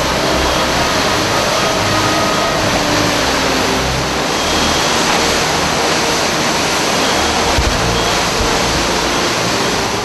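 Hurricane-force wind and driving rain, a loud, steady roar.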